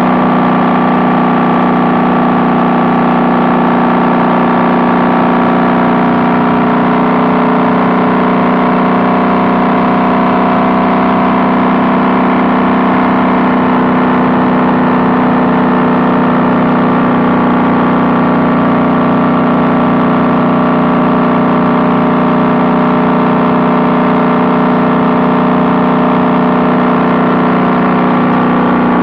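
Honda Valkyrie's flat-six engine through six-into-six Cobra exhaust pipes, running steadily at an even pitch while the bike is ridden.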